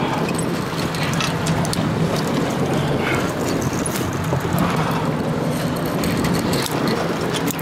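A boat's engine running steadily as a low hum, under an even rush of wind and sea noise.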